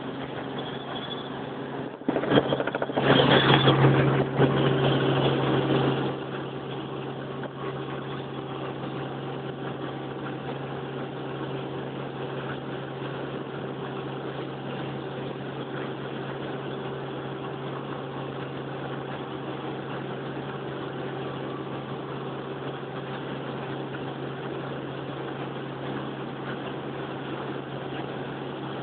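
Helicopter engine and rotor running, a steady drone with a low hum, that swells louder for a few seconds about two seconds in and then settles back.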